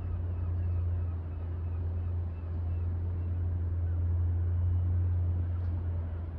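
A steady low mechanical rumble with a faint hiss above it, holding level throughout.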